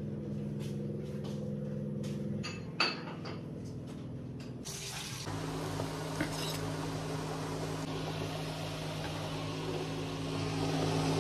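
Clinks and knocks of a steel spoon and plates over a steady low hum, with one sharper clink near three seconds. About five seconds in, hot oil starts sizzling as bread pakoras fry in a pan, a steady hiss that carries on over the hum.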